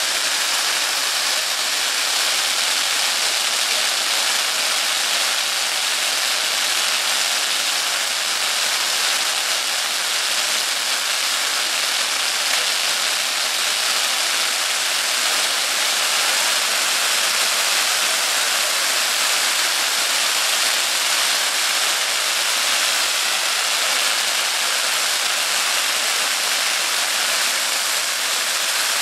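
Firework fountains and spinning wheels spraying sparks: a steady, dense hiss with no distinct bangs.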